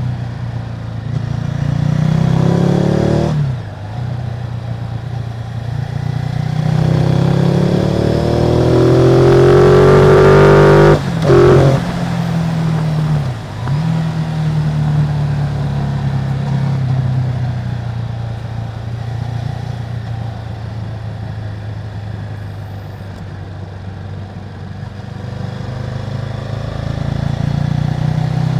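Ducati Multistrada 950's 937 cc Testastretta L-twin, through its stock exhaust, pulling hard with the revs rising and dropping sharply at each gear change, twice in the first half. It then settles into steady running.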